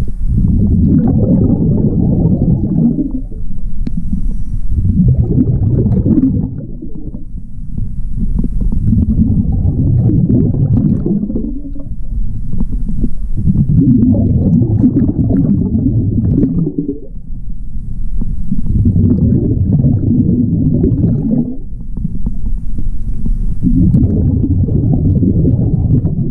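A diver breathing through a regulator underwater: each exhalation sends a burst of bubbles rumbling and gurgling past the chest-mounted camera. This happens about every four to five seconds, with quieter gaps for the inhalations in between.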